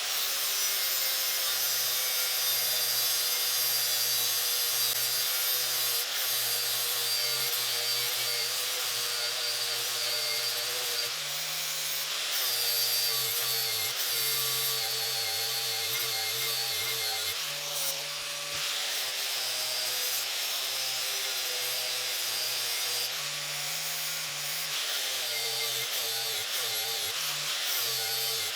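Power tool grinding the steel Toro Recycler mower blade to sharpen it, running continuously. Its motor note steps up and down a few times over the grinding hiss.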